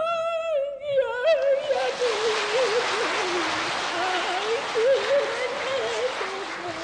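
A woman's sung note, held and then breaking off about a second in. It is followed by a long stretch of audience applause, with a wavering melody line carrying on underneath and fading near the end.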